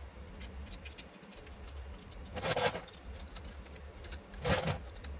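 Light metallic clicks and rattles of parts and tools being handled while a carburetor is refitted on a small ATV, with two short rushes of rustling noise about two and a half and four and a half seconds in, over a steady low hum.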